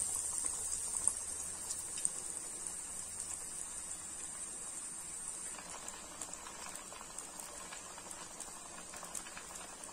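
A breadcrumb-coated vegetable cutlet deep-frying in oil heated to medium: a steady sizzle with fine crackling, slowly easing off.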